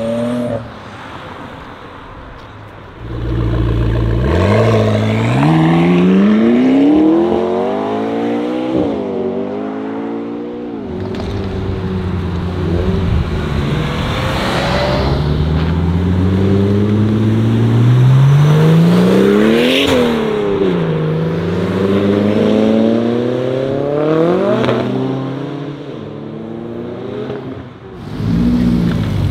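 Cars accelerating away one after another, engines revving up and dropping back through gear changes. The loudest rev comes about two-thirds of the way through as a car passes close.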